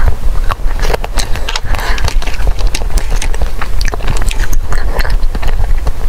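Close-miked chewing and crunching of frozen ice cream bars, a dense run of sharp crackling clicks as the frozen coating and filling break between the teeth, over a steady low rumble.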